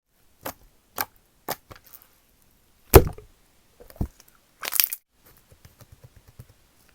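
Slime being squeezed and poked by hand, giving sharp pops and clicks: a few single pops, a loud pop about three seconds in, a crackling cluster near five seconds, then a run of small quick clicks.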